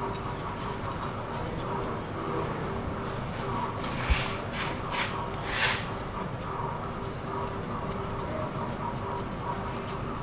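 A steady high-pitched tone throughout, with a few brief rustles and a soft knock about four to six seconds in as sesame seeds are sprinkled by hand onto egg-washed dough in a pan.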